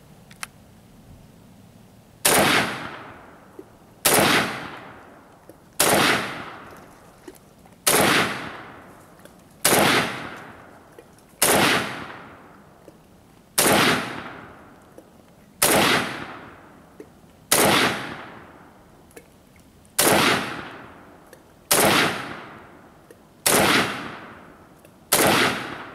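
Century Arms WASR-10 AK-pattern rifle in 7.62×39mm fired in slow semi-automatic, about thirteen single shots roughly two seconds apart, starting about two seconds in. Each shot trails off in an echo.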